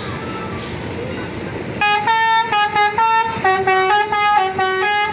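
A bus's telolet basuri musical horn playing a loud melody of stepped notes, starting about two seconds in over a steady background rumble.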